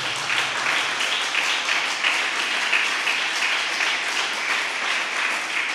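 Congregation clapping, many hands together in steady applause.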